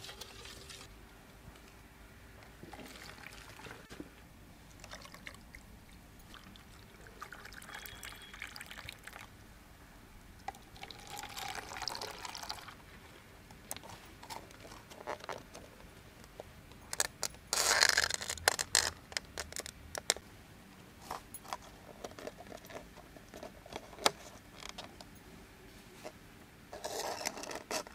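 Strawberry jelly mixture being poured into plastic cups in several short pours, the longest and loudest a little past the middle. Brief plastic clicks and rustles come as dome lids are handled and pressed onto the cups, mostly in the second half.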